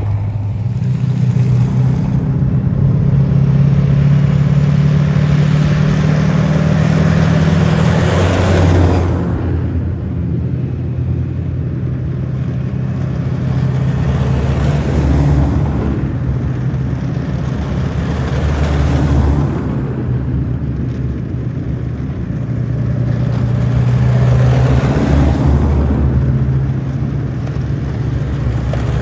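A convoy of tracked armoured vehicles, Warrior infantry fighting vehicles, drives past with a steady diesel engine drone and track noise. The sound swells several times as each vehicle passes.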